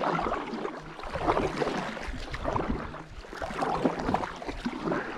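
Kayak paddle dipping and pulling through the water, with splashing and dripping that swell and fade with each stroke, about once a second.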